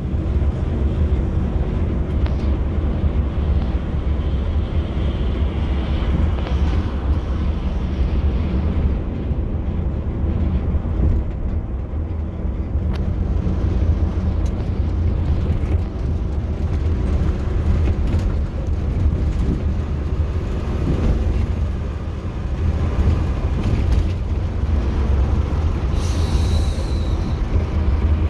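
Steady engine drone and road rumble heard from inside a moving intercity coach, heavy in the low end.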